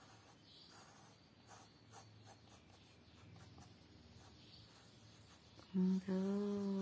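Crayon scratching on paper in short repeated strokes, drawing a wood-grain pattern. Near the end a person's voice holds one steady hummed note for about a second, louder than the strokes.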